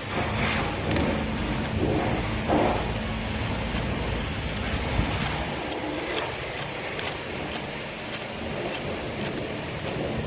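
A 2012 Ford Fusion's engine running steadily, with light sharp ticks about twice a second from about four seconds in.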